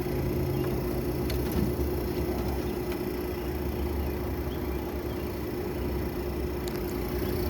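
Mid-1950s RCA Whirlpool half-horsepower window air conditioner, built by Fedders, running on cool. Its fan and Tecumseh compressor give a steady hum with one constant mid-pitched tone over a low rumble.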